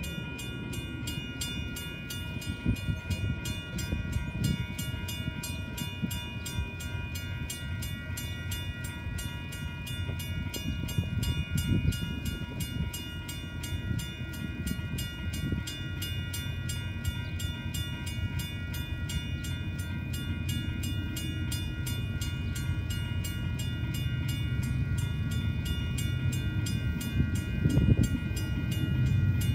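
Railroad grade crossing bells ringing steadily, the struck WC Hayes mechanical bell of the near signal among them, with even, rapid strikes and several ringing tones layered together. Under the bells a freight train's rumble grows louder as it approaches the crossing, loudest near the end.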